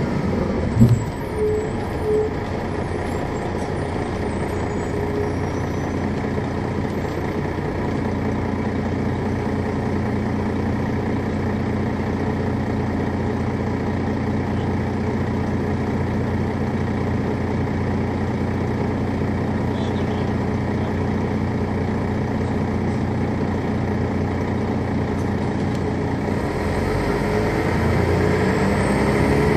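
Detroit Diesel Series 60 diesel engine of an MCI D4000 coach idling steadily, with a short air-brake sound and a thump in the first couple of seconds. Near the end the engine note rises and grows louder as it revs up under power.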